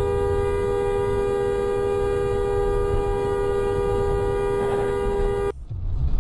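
Vehicle horn held down in one long, steady two-tone blast over road rumble, cutting off abruptly about five and a half seconds in, after which only engine and road noise remain.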